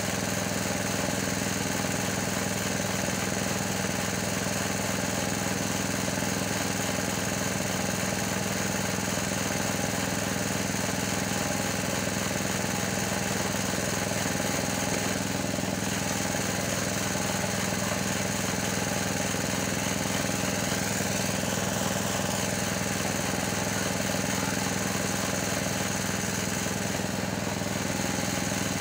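Small air-cooled engine driving a forage chopper, running steadily at a constant speed with no chopping heard.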